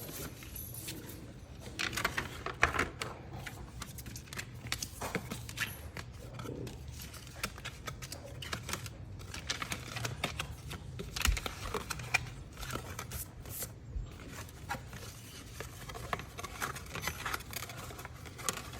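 A dog eating cake close to the microphone: irregular wet chewing, licking and smacking clicks, some louder snaps among them.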